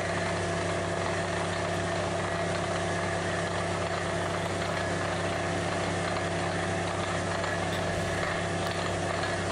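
A water-well drilling rig's engine running steadily, a constant even hum that does not change in speed.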